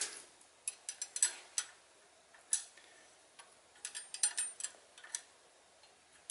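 Light metal clicks of hand tools on a 6.7 Cummins valve adjuster, a hex key in the rocker-arm adjusting screw and a wrench on its jam nut. They come in two short clusters, about a second in and again around four seconds, with a lone click between.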